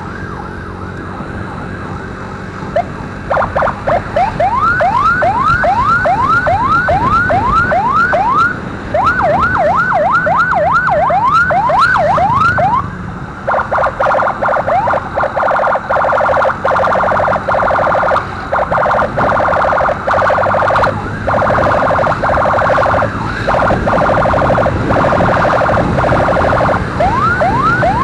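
Electronic emergency siren over motorcycle engine and road noise. About three seconds in it starts a rising whoop repeated about twice a second; about halfway through it switches to a fast trill with short breaks, and near the end it goes back to rising whoops.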